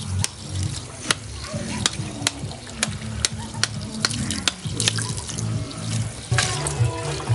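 A kitchen knife cutting up a plucked chicken on a stone slab, with sharp, irregular clicks of the blade striking the stone, about two or three a second, and wet cutting sounds between them.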